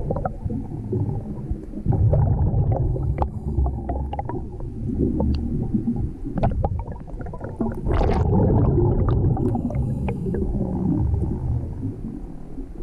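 Scuba diver's exhaled breath bubbling out of the regulator underwater, heard as an irregular low gurgling rumble that swells in surges, with scattered small clicks and knocks.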